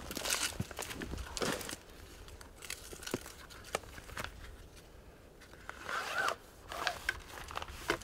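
Camp bedding being handled and unpacked: fabric rustling, a zip-like rasp, and scattered small clicks and scrapes, with a run of swishes in the first couple of seconds and another rasp about six seconds in.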